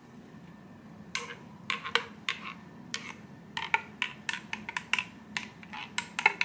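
A small metal spoon clinking against the inside of a mug while stirring a matcha latte: quick, irregular clinks with a slight ring, starting about a second in and coming faster in the second half.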